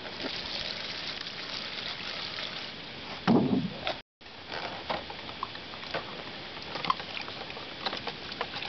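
Liquid poured from a plastic jug into a plastic tub over a speedometer cable drive housing, with a louder thud about three seconds in. After a brief dropout, gloved hands swish and scrub the housing in the liquid, with small splashes and clicks.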